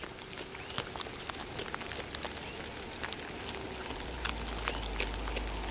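Koala chewing eucalyptus leaves: irregular crisp crunching clicks, a few a second, as the leaves are bitten and chewed.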